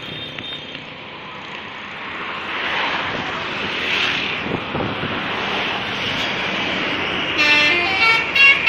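Road traffic passing, then near the end a bus's telolet horn plays its quick tune: several horn notes stepping up and down in pitch.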